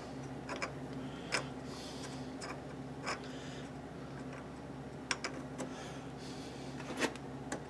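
Light metallic clicks and taps, about eight spread unevenly, as the change gear is worked onto the back end of the Logan lathe spindle over its Woodruff key. A steady low hum runs underneath.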